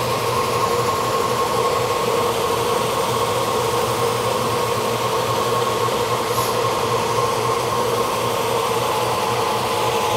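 Lagler Trio multi-disc hybrid floor buffer running steadily as it sands a cupped hickory floor panel with 40-grit abrasive, a constant motor hum under a steady grinding hiss.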